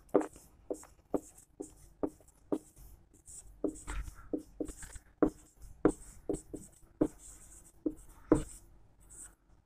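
Marker pen writing on a whiteboard: a run of short, irregular squeaks and taps, a few each second, as the strokes of the letters are drawn.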